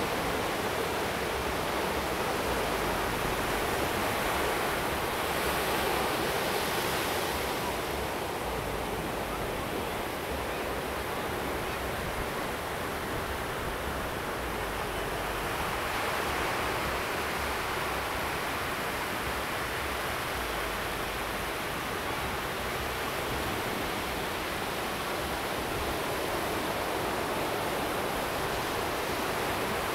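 Ocean surf breaking and washing up the beach: a steady rushing that swells and eases slowly.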